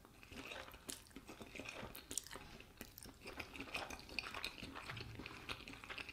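Quiet, close chewing of a mouthful of spaghetti carbonara, with many small wet mouth clicks, and a metal fork tapping and scraping on the plate in the second half.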